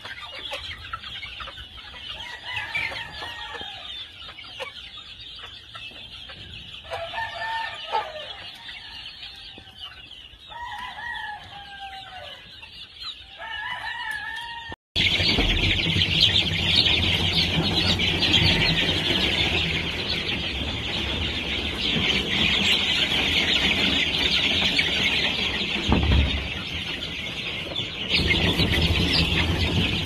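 Chickens in a coop give a few scattered calls over a quiet steady background. Then, after a sudden change about halfway, a brooder full of chicks peeps continuously in a dense, louder high chatter.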